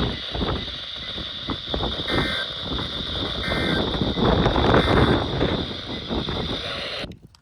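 NOAA weather radio receiver hissing and crackling with static, with two short bursts of faint screeching data tones about two and three and a half seconds in, typical of the SAME digital header that opens an EAS alert. The static cuts off suddenly near the end.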